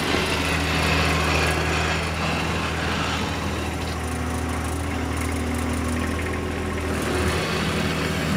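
John Deere 1025R subcompact tractor's three-cylinder diesel engine running steadily as the tractor reverses, pushing snow along concrete with its backward-facing rear blade, with a scraping hiss from the blade.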